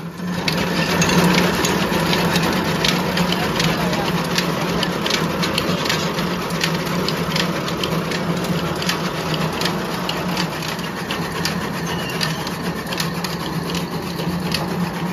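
Electric chaff cutter (fodder chopping machine with a heavy flywheel) starting up abruptly and running with a steady motor hum and a rapid clatter of blade clicks, with green fodder being fed in to be chopped near the end.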